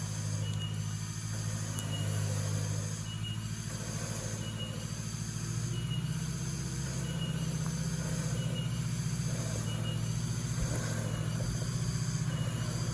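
Off-road 4x4's engine running with a steady low drone, its pitch shifting slightly about halfway through. Over it, a high hissing sound swells and fades about once a second, each time with a short faint beep-like tone.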